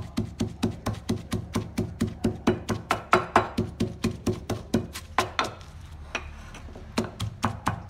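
Wooden pestle pounding scallions, chillies, salt and sugar into a paste in a wooden mortar: quick, even knocks at about four to five a second, with a short pause about six seconds in.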